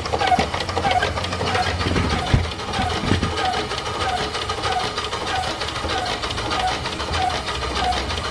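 Steam-driven duplex pump running with a steady clatter. A short high chirp repeats about twice a second with its strokes, which the owner thinks may come from a packing gland running a little dry. Two dull knocks come a little before the middle.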